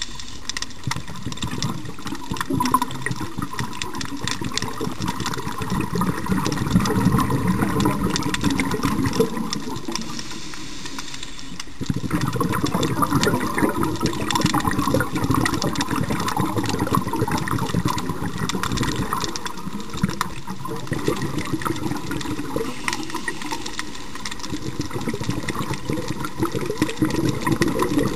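Underwater recording of dense, continuous clicking and rattling from nearby lobsters, over gurgling bubble surges that rise and fall every several seconds, typical of a scuba diver's exhaled breaths.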